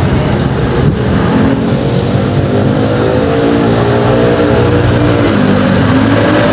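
A motor vehicle's engine running on the road, its pitch rising and falling over several seconds, under a steady rushing road and wind noise.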